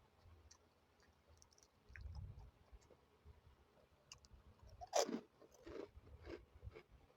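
Close-miked eating: a person bites into crunchy food with one loud crunch about five seconds in, then chews with several softer crunches. A low dull bump comes about two seconds in.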